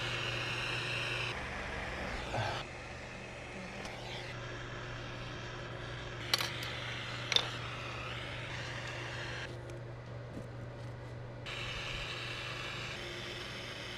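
Jeweller's gas torch hissing steadily as it heats a ring for soldering, the hiss stepping up and down abruptly a few times. Two sharp clicks about a second apart a little past the middle.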